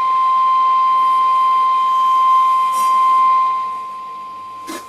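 Steady whistle-like test tone from a signal generator, reproduced through a Columbus 26P valve radio's loudspeaker during IF alignment. It drops in level about four seconds in, and a short click sounds near the end.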